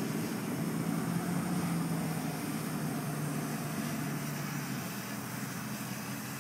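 Nymbus bicopter drone's two rotors running in low flight: a steady buzzing drone with a few held pitches, easing slightly as the craft settles toward the ground near the end.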